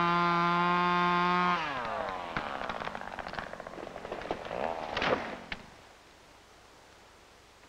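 Two-stroke chainsaw running at full throttle, its pitch dropping as it is let off about a second and a half in. Then comes a run of crackling and snapping, with a loud crack about five seconds in, as the cut tree breaks and comes down.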